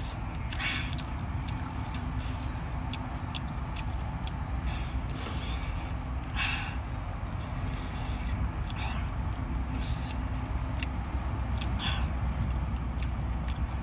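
Eating sounds from cooked octopus: short wet slurps and mouth smacks, several of them spread apart, with small clicks, over a steady low background rumble.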